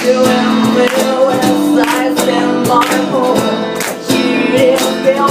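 Live band playing a song: guitar strumming with a melodic line, probably sung, over a steady beat of sharp hits.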